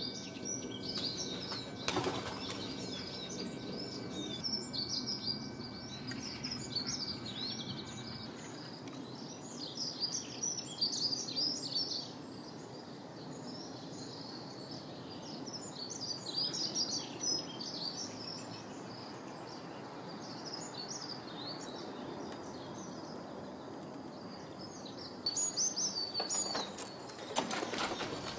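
Small garden birds chirping and singing, with many short high calls throughout and a cluster of sharp clicks near the end.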